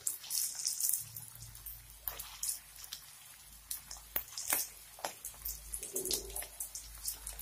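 Hot oil in a frying pan sizzling and spitting with irregular crackling pops as potato patties (aloo tikki) are laid into it one by one for shallow frying.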